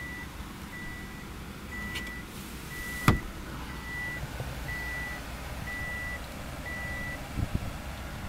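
A car's interior warning chime beeps steadily, one high beep about every second, and stops about seven seconds in. There is a sharp click about three seconds in and a couple of soft knocks near the end.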